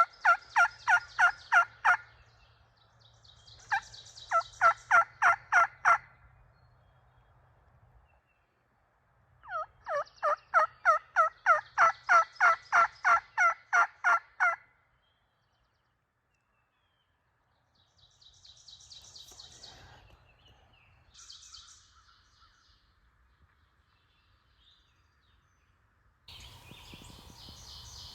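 Turkey yelping: three long series of loud, evenly spaced yelps, about three notes a second, followed by fainter calling. A rustling hiss starts near the end.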